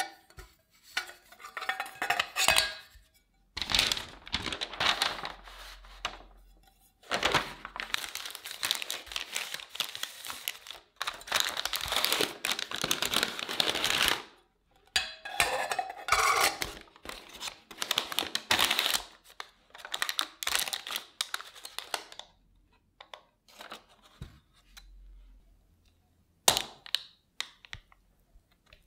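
Parchment paper crinkling and rustling as it is handled and pressed into a round metal cake pan, in repeated bursts over about twenty seconds. Near the end comes a single sharp knock.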